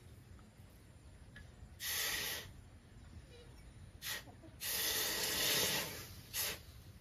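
Hot forged axe head being quenched in a water trough, hissing and sizzling in four bursts as it is dipped: one about two seconds in, a brief one around four seconds, a long one of over a second, then a short last one. This is the water quench that hardens the blade.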